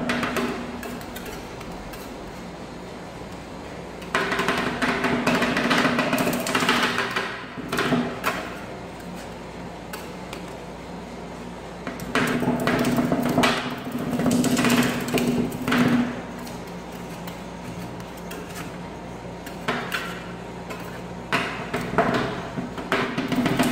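Two metal spatulas chopping and scraping an ice-cream and pudding mixture on a chilled stainless-steel ice pan. The rapid clattering taps come in three bouts a few seconds long, with quieter pauses between.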